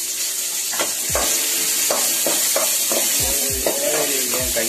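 Shallots, garlic and whole spices frying in hot groundnut oil in an aluminium kadai, with a steady sizzle. A metal spatula stirs them, clinking against the pan about twice a second.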